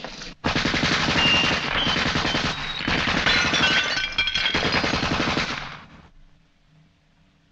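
Thompson submachine gun with a drum magazine firing long, continuous automatic bursts, with glass bottles shattering under the fire. The shooting starts about half a second in and stops about six seconds in.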